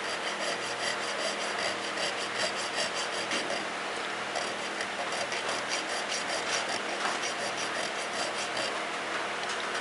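Hand file cutting file work into a phosphor bronze knife bolster, rasping in a steady run of quick, short strokes.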